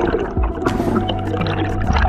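Background music with a steady low bass.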